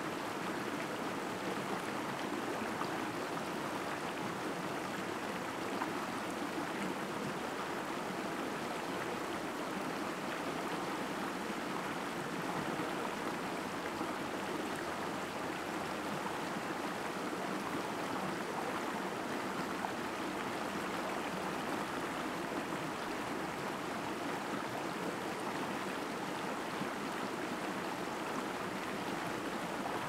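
Creek flowing: a steady, even rush of running water with no breaks.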